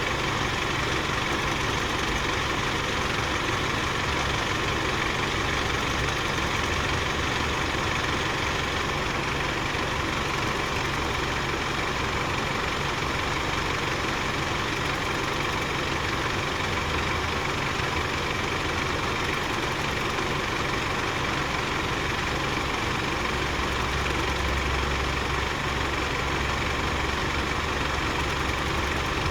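BMW B48 turbocharged inline-four petrol engine idling steadily, with an extraneous noise that the owner is asking about.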